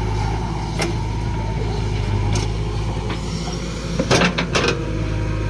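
Diesel engine of a backhoe loader running steadily, with a few sharp knocks and a louder quick cluster of knocks about four seconds in.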